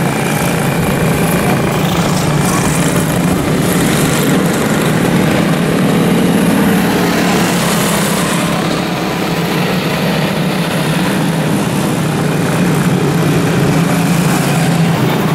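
Quarter midget race cars' small engines running steadily as the cars lap a dirt oval, a continuous engine drone with no break.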